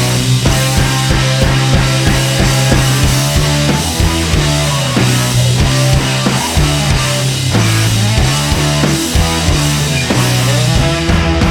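Rock music with a steady drum beat and a bass line moving between held notes.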